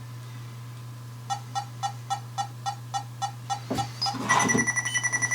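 Flux 2 ghost-hunting sensor beeping: a regular run of short electronic beeps, about four a second, then a louder, faster electronic warble with a steady high tone near the end. It is set off by movement around it, with too much going on nearby for it to settle.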